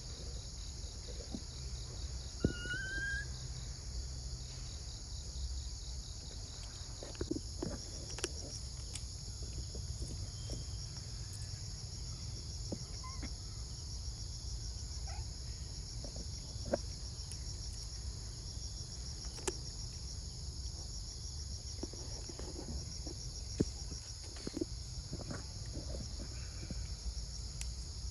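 Steady insect chorus, a high pulsing buzz, over a low rumble. Scattered sharp clicks come through it, with a brief rising bird chirp about two seconds in.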